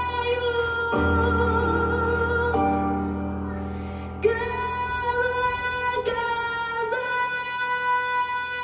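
Female solo voice singing a song in long held notes over a sustained instrumental accompaniment.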